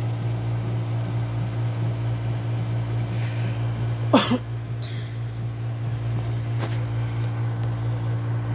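A steady low hum, and about four seconds in one short whimper from a pregnant Shih Tzu that slides down in pitch.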